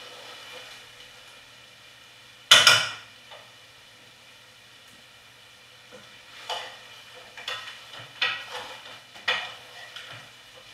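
A spoon stirring curry chicken in a stainless steel pot, knocking and scraping against the metal, with a faint sizzle underneath. One loud clank comes about two and a half seconds in, and a run of lighter knocks follows in the second half.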